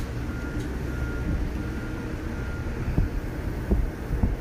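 Steady low rumble with a few light knocks in the second half as a beer-can chicken is set down on a pellet grill's grates.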